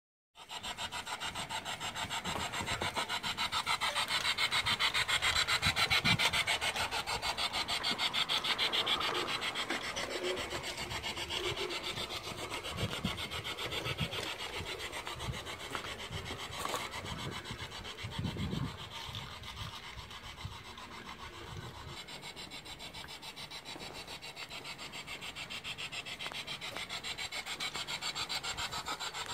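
G-gauge garden railway train running along the track, making a fast, even rasping rhythm. It grows louder as the train comes close, then fades as it moves away.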